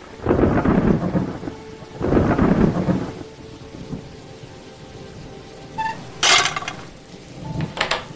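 Thunderstorm sound effect: steady rain hiss with two low rolls of thunder in the first three seconds, then a short sharp crack about six seconds in and a few sharp clicks near the end.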